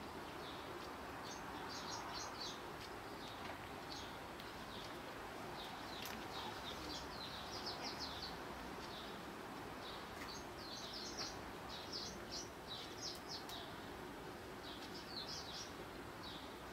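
Eurasian tree sparrows chirping at a seed dish: short, high chirps in quick clusters, repeated every second or so over a steady background hiss.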